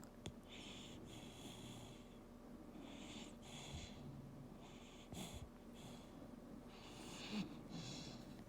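Quiet sleep breathing: about half a dozen raspy, hissing breaths in an uneven rhythm, with a few brief low sounds in between, the odd noises of someone sound asleep.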